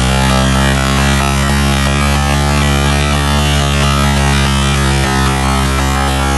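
Loud electronic music with a steady, droning bass.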